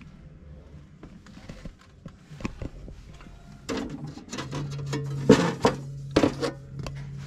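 Metal licence plates clattering and knocking against each other and the wooden crate as they are flipped through by hand, louder in the second half. A low steady hum comes in about halfway through.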